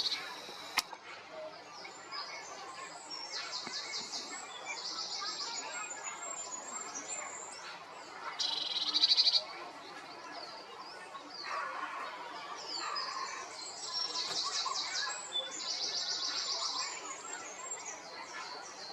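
Several small birds singing and calling, with bright rapid trills repeated every few seconds, the loudest about nine seconds in. A single sharp click sounds just under a second in.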